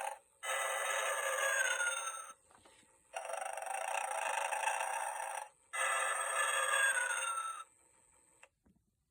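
Battery-operated snoring Christmas figure playing its electronic snore through a small, thin-sounding speaker with no bass. It gives three snoring breaths of about two seconds each; the first and third end in a falling whistle. The snoring stops a second or so before the end, followed by a small click.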